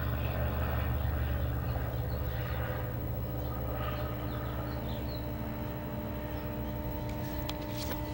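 A 1960 Olympic vacuum-tube television's speaker putting out weak, quiet sound over a steady mains hum, with a few faint clicks near the end. The weak output is the sign of the set's faulty audio stage, tested here with a swapped detector tube.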